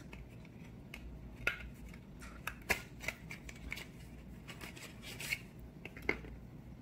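Small paperboard lipstick box and its plastic tube being handled: scattered light clicks and short rustles as the box is opened and the tube taken out.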